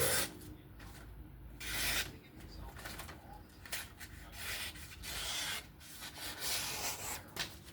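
Knife blade making several short rasping strokes against a surface while its edge is checked, the loudest about two seconds in.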